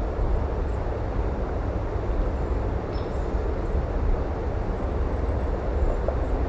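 Steady outdoor rumble and hiss with no distinct pitched source, and a few faint short high chirps.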